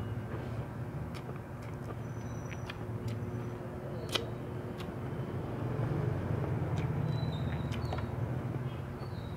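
Eating and mouth sounds, scattered sharp clicks and smacks, the strongest about four seconds in, over a steady low background rumble with a faint hum.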